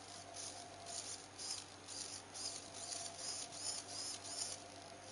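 Small hobby servo motor whirring in short bursts, about two a second, each with a faint whine that rises and falls, then stopping near the end: the servo is now responding to commands.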